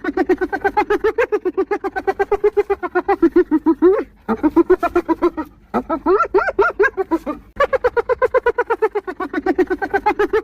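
Spotted hyena giggling: fast runs of short, pitched 'hee-hee' notes, about seven a second, broken by a few brief pauses partway through.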